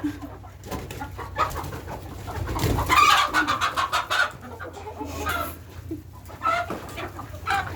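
Chickens clucking and squawking as they are chased, mixed with short scuffling knocks.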